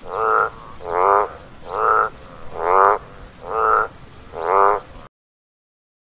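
Frog croaking: six croaks, each about half a second, coming roughly one every 0.8 seconds, then the sound cuts off suddenly about five seconds in.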